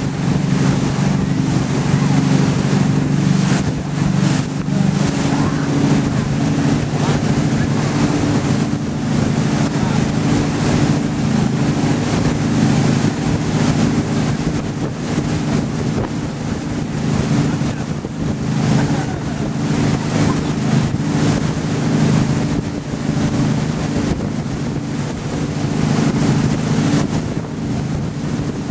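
Motorboat engine running steadily at speed while towing, with the rush of the boat's churning wake and wind buffeting the microphone.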